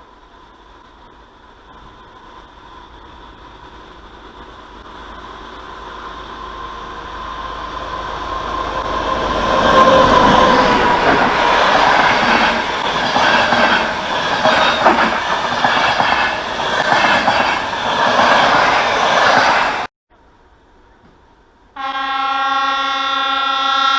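A train approaching and growing louder over about ten seconds, then passing close with its wheels clattering rhythmically over the rails. The sound cuts off abruptly, and about two seconds later a train horn blows one steady blast.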